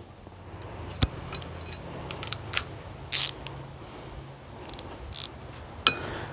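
Metal hand tools clinking and rattling: a socket on an extension and handle being picked up and fitted onto the outboard propeller's castle nut, in a scatter of sharp clicks with a louder short clatter about three seconds in.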